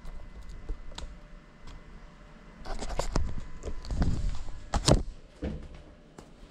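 GEPRC Cinelog 35 cinewhoop drone crashing: a jumble of knocks and scrapes from about three seconds in, with one loud thud near five seconds, as it hits and tumbles along the floor and walls.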